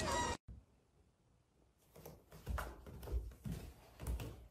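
After a sudden cut and about a second of near silence, a few soft, irregular thumps and knocks of footsteps on wooden stairs begin about two seconds in.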